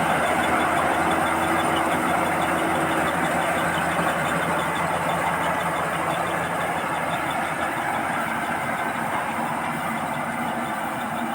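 Combine harvester running steadily while harvesting rice, its engine and machinery making a continuous noise that grows a little quieter towards the end.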